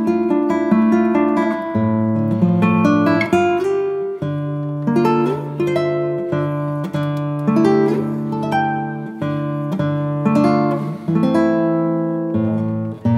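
Background music: an acoustic guitar picking a melody over plucked chords, with a few notes slid in pitch.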